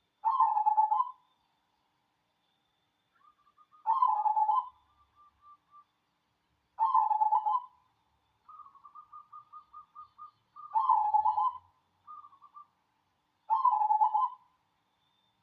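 Zebra dove (perkutut), cemani variety, cooing: five loud coo phrases about three seconds apart, with runs of soft, quick staccato notes between them.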